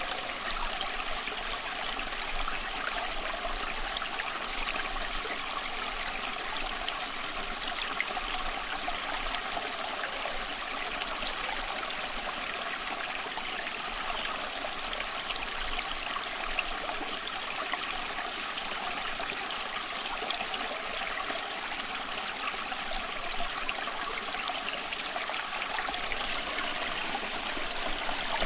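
Stream water running and trickling steadily over stones, with a continuous splashing babble.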